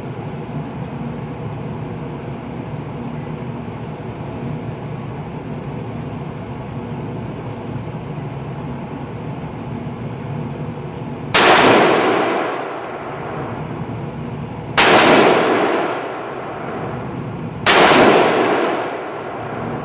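Three single shots from a Smith & Wesson M&P15 Sport II AR-15 rifle chambered in .223/5.56, about three seconds apart, each ringing out and fading over about a second. For roughly the first ten seconds there is only steady background noise.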